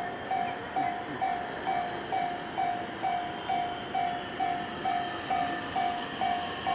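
Railway level-crossing alarm ringing steadily at about two strikes a second, with a JR Kyushu 811 series electric train approaching faintly underneath.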